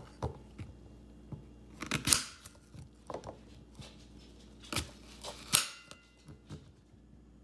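Knife slicing through a crisp apple on a plate: a handful of short, crunchy cuts a second or so apart, the loudest about two seconds in and twice more near the five-second mark.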